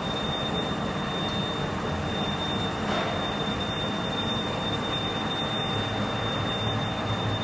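Schaerer UD 532 CNC lathe running with a long steel shaft set up in it: a steady machine noise with a thin, steady high whine over it.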